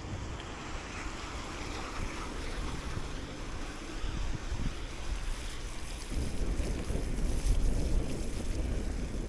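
Wind rumbling on the microphone over the hiss of bicycle tyres on a wet, slushy road. It grows louder about six seconds in.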